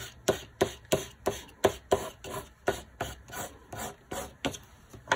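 Watercolor crayon scribbled on paper in quick back-and-forth strokes, a rubbing sound about three strokes a second.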